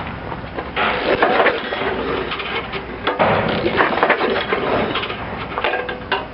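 Recoil starter rope pulled twice on an 8 hp Briggs & Stratton engine, a pull starting about a second in and another about three seconds in, each a rattly whir with the engine spinning over freely because the spark plug is out for a spark test. Shorter clicks and rattles follow near the end.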